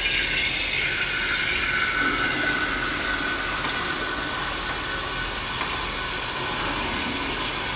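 Water running steadily from a tap, filling a one-cup measure of water.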